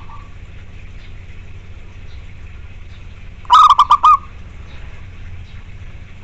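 Zebra dove (perkutut) calling: a loud burst of four or five rapid staccato notes about halfway through, over a steady low hum.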